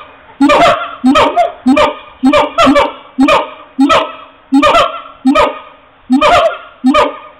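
Siamangs calling: loud barking calls repeated about twice a second in a steady rhythm, each call bending in pitch.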